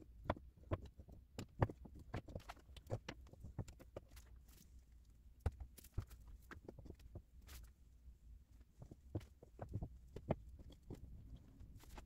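Irregular light clicks and knocks of wooden blocks being handled and set against one another in pipe clamps during a cutting-board glue-up.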